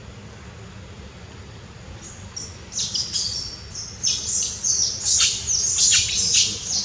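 Birds chirping in quick, high-pitched bursts that start about two and a half seconds in and grow louder and denser, over a low steady background rumble.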